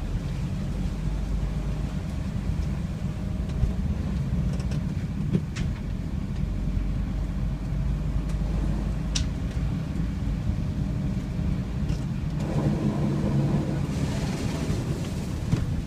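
Car driving through flood water, its engine giving a steady low rumble. About twelve seconds in, a louder rushing noise with a hiss rises and then fades, typical of the tyres pushing through water.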